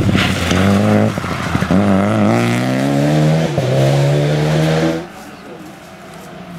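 Renault Clio rally car's engine revving hard as it pulls away through the gears, its pitch climbing and then dropping at each shift. About five seconds in the sound falls suddenly to a faint engine in the distance.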